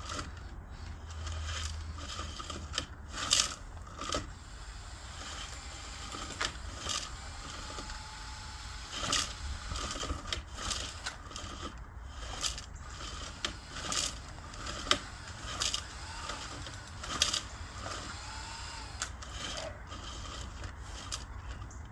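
Irregular clicks, knocks and scrapes of small parts being handled and fitted together, about one every second or so.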